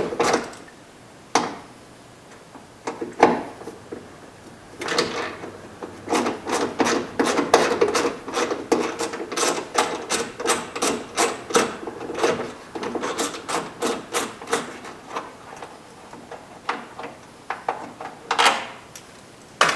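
Socket ratchet clicking in quick runs of clicks as a 10mm bolt is backed out, with a few scattered clicks first and pauses between runs.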